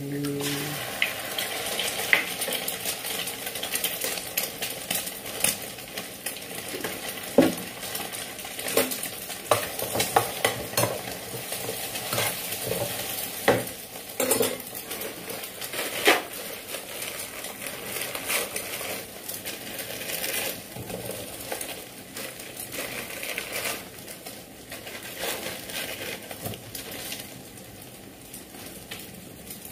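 Food sizzling in a frying pan, with a spoon scraping and clinking against the pan again and again as it is stirred, while a batch of Maggi noodles is being cooked.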